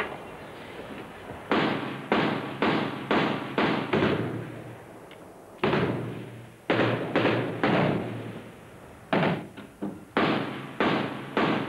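Rifle shots fired one at a time, about two a second, some fifteen in all in three runs with short pauses between them. Each shot has a short echoing tail.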